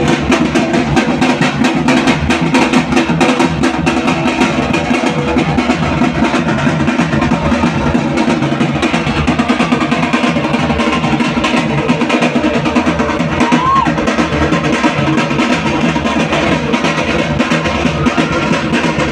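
Loud, fast, continuous drumming with music, the driving beat of a street tiger dance (puli vesham).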